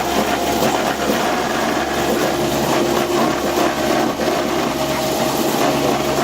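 Factory processing machinery running steadily: a dense, even whirring noise with a steady hum underneath.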